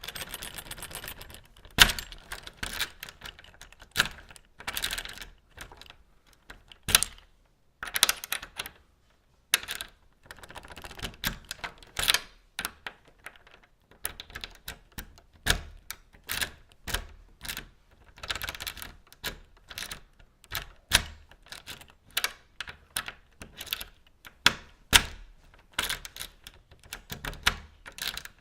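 A key rattling and scraping into a door lock and the lock clicking as it turns, repeated many times in irregular clusters of sharp metallic clicks and short scrapes, with a couple of brief pauses.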